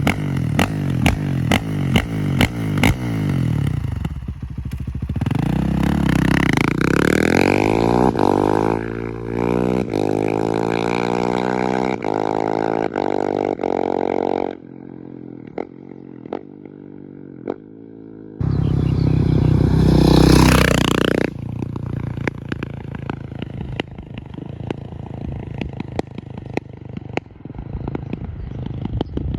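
KTM 690 SMC R single-cylinder engine through an open FMF 4.1 exhaust with no catalytic converter or dB-killer, pulling hard with its pitch climbing for several seconds before cutting off. About twenty seconds in, a loud pass comes with a falling pitch. Around this, the engine runs with sharp popping from the exhaust.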